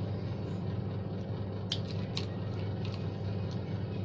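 An RJ45 crimping tool being squeezed onto a plug on a Cat 5e LAN cable: a few sharp clicks near the middle, over a steady background hum.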